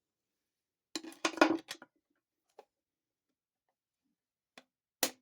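Screwdrivers clinking against metal while a snap ring is worked out of a TH400 transmission clutch drum. There is a quick cluster of clinks about a second in, a couple of faint ticks, and one sharp click near the end.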